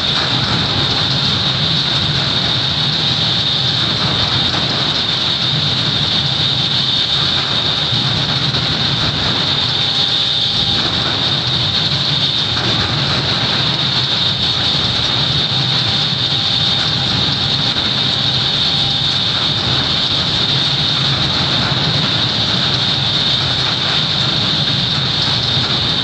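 Seismic shake table test rig running under an enclosure during an earthquake test: a steady, loud machine noise with a constant high-pitched hiss over a low rumble.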